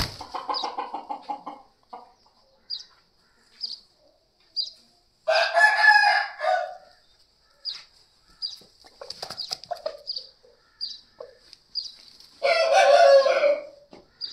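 Aseel rooster crowing twice, each crow about a second and a half long, several seconds apart. Short, high chirps come about once a second between the crows.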